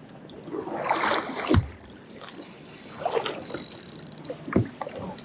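Water splashing and sloshing at a boat's side, mixed with a fleece sleeve rubbing across the microphone, and two dull knocks.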